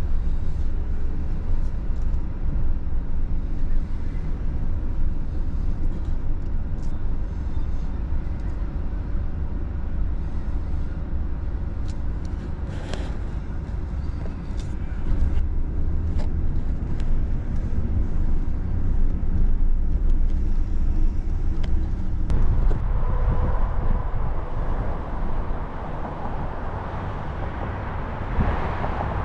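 Road traffic: car engines and tyre noise over a steady low rumble, growing louder and hissier about two-thirds of the way through.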